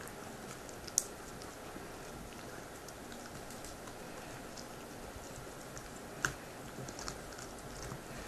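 Two dogs gnawing raw bones: irregular small clicks and crunches of teeth on bone, with two sharper cracks, one about a second in and one about six seconds in.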